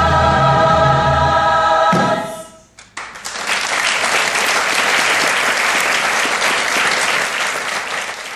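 A choir holds a final sung chord that cuts off about two seconds in and dies away. After a brief gap, audience applause begins and continues, tapering near the end.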